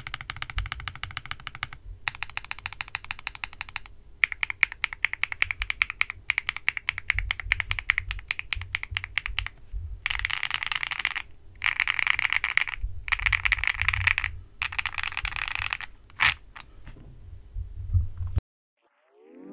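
Typing on a Sugar65 mechanical keyboard with HMX Macaron switches, Akko PBT double-shot ASA-profile keycaps and foam-modded case and plate. It is a rapid clatter of keystrokes in runs with short pauses, ending with one separate louder key strike before the sound cuts off.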